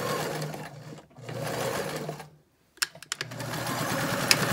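Electric sewing machine stitching fabric over elastic in three short runs, stopping and starting again. A few sharp clicks fall in the longer pause near the middle, and there is one more sharp click near the end.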